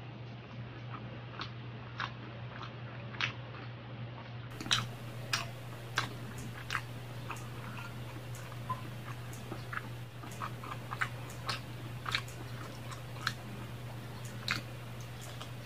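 Close-up chewing of longganisa sausage and fried rice: irregular wet mouth clicks and smacks, several a second, over a steady low hum.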